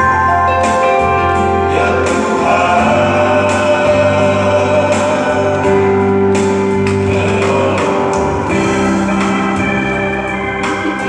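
A small vocal group singing a gospel hymn over sustained electronic organ chords, with the voices joining about two seconds in.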